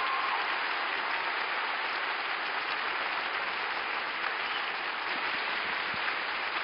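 Arena crowd applauding steadily at the end of a figure skating program, as the last held note of the music dies away just after the start.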